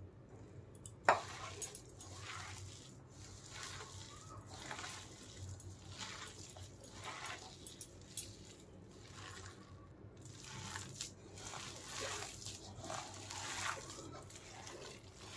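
A bare hand squeezing and kneading a stiff mix of chopped spinach, onion and gram flour, made without water, in a plastic bowl: soft, irregular squelching and rustling. A single sharp click about a second in.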